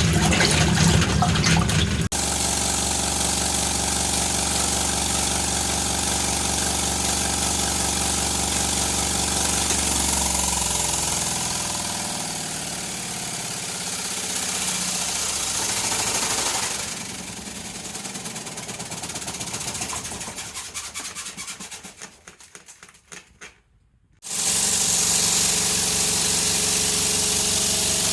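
A small two-tub washing machine's electric motor running with a steady hum, after a couple of seconds of rushing water. From about ten seconds in the motor winds down with a wavering hum and goes nearly quiet, then about twenty-four seconds in it starts abruptly and runs steadily again.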